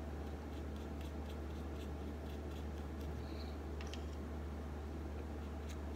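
Faint, light scratching strokes of a drawing tool on paper, a few short ticks at a time, over a steady low hum.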